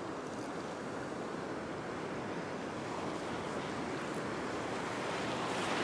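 Ocean surf breaking and washing up around the shallows, a continuous rush that grows slightly louder near the end.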